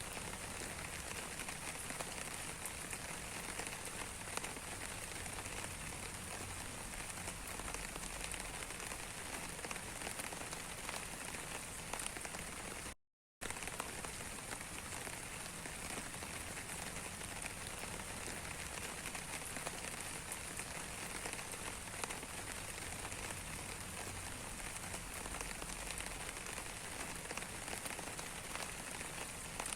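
Steady rain with scattered drop ticks. It cuts out completely for about half a second around thirteen seconds in, then resumes unchanged.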